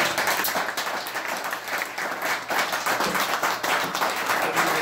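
Audience applauding at the end of a song: a dense, steady clatter of many hands clapping.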